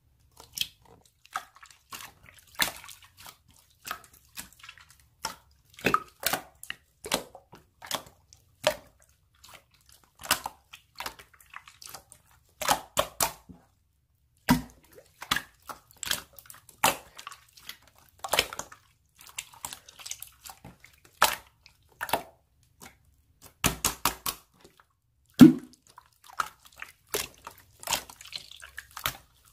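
Slime being played with by hand, making irregular wet clicks and small pops.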